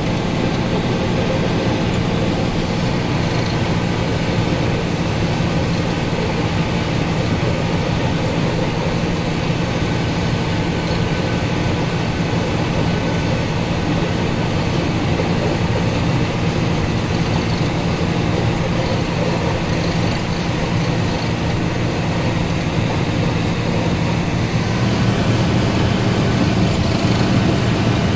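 A Mercedes-Benz Unimog snowplough truck heard from inside its cab while driving: a steady diesel engine drone, with road and snow noise from the front plough pushing snow. It gets a little louder near the end.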